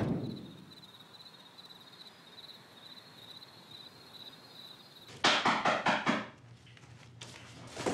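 Faint night-time cricket chirping, a thin high pulsing trill. About five seconds in comes a quick run of about six loud, sharp knocks lasting about a second.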